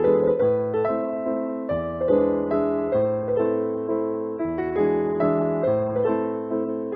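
Background music: piano or electric piano playing a steady run of notes.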